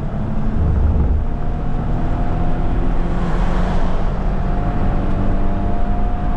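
Car driving at speed, heard from inside the cabin: a steady rumble of engine and tyre noise, with a faint whine that rises gently in pitch.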